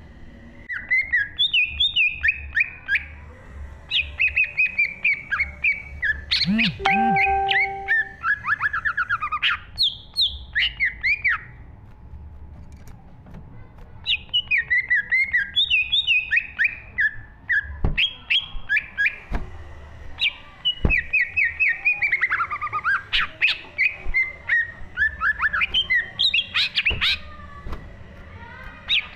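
A green leafbird (cucak ijo) singing in long, fast runs of varied chirps and whistled notes, with short pauses between the runs.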